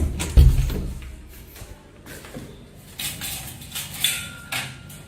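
A heavy thump about half a second in, then scattered knocks and rustling, like something falling or being knocked about.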